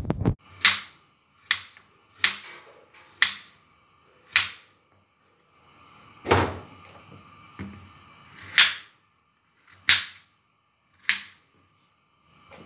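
Kitchen knife cutting potatoes into chunks on a wooden cutting board: about nine crisp strokes, roughly one a second and unevenly spaced, each ending with the blade knocking the board. A heavier low knock comes right at the start.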